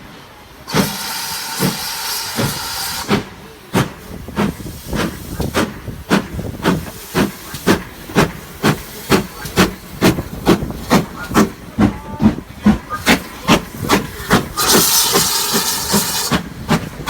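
Steam locomotive pulling away: a burst of steam hiss, then exhaust chuffs that quicken from about two to about three a second as it gathers speed, with another loud release of hissing steam near the end.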